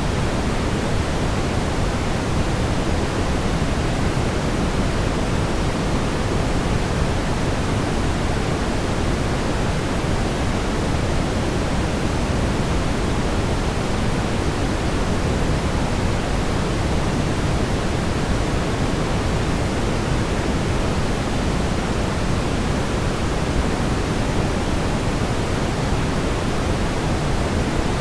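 Steady brown noise: a constant, even rumbling hiss, heaviest in the low end and thinning towards the highs, unchanging throughout.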